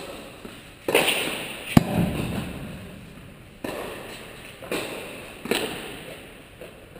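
Tennis rally: a ball struck back and forth with rackets, sharp hits about a second apart, each echoing in a large indoor tennis hall.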